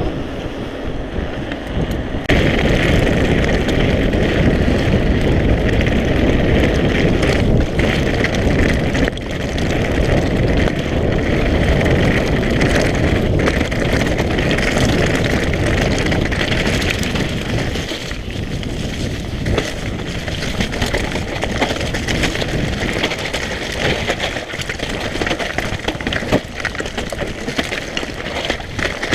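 A mountain bike ridden at speed down a rough trail: wind rushing over the microphone over the rattle and crackle of the bike and tyres on the ground. It gets louder about two seconds in as the bike picks up speed.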